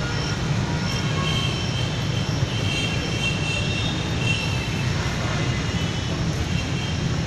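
A steady low rumble, with faint high tones coming and going above it.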